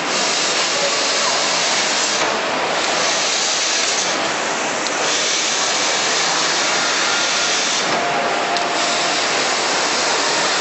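Steady loud hiss of a 3D laser cutting machine at work, with assist gas rushing from the cutting head as it cuts a formed sheet-metal part.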